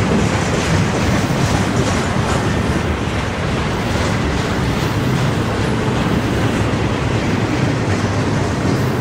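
Double-stack intermodal well cars of a freight train rolling past: a steady, loud noise of steel wheels running on the rails.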